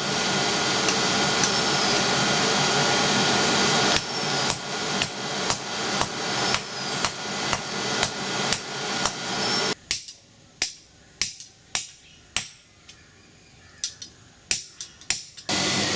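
Hand hammer striking a piece of spring steel to straighten it, sharp metal blows about two a second. For the first ten seconds a steady rushing noise lies under the blows; after it stops, the strikes go on, spaced unevenly.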